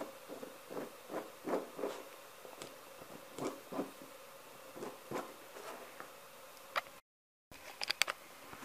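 A hand scraper scraping and peeling scribed closed-cell foam away from the back of a vinyl headliner piece: a series of short, irregular scrapes and rubs over a faint steady hum. The sound cuts out about seven seconds in, followed by a few sharp clicks.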